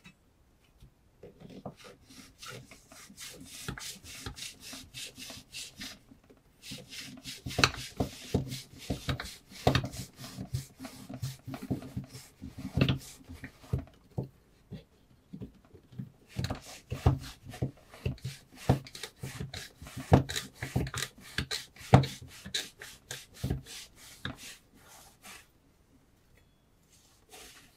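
Rapid, repeated rasping strokes of a knife blade against a surface, several a second, in three long runs with short pauses between.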